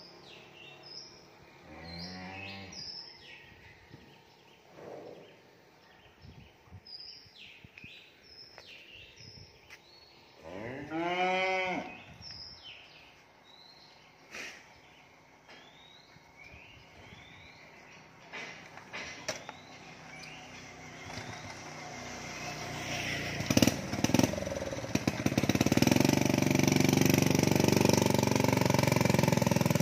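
A cow mooing: a short call about two seconds in, then one long, loud moo about ten seconds in, with small birds chirping. From about twenty-two seconds a motorbike engine starts up and runs, growing louder and becoming the loudest sound as it tows the cow's cage cart away.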